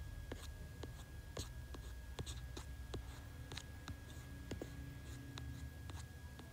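Faint, irregular tapping and clicking, a few clicks a second, from a hand working a tablet's touchscreen while scrolling, over a low steady hum and a faint high whine.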